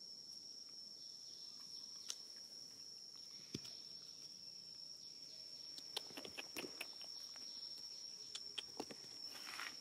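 Steady high-pitched insect drone, with a few sharp clicks and light rustles over it that come more often in the second half.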